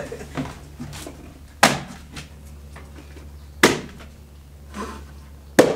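Corded electric staple gun firing three staples, one sharp snap about every two seconds, run off a small portable battery power station; to its users it sounds short of power.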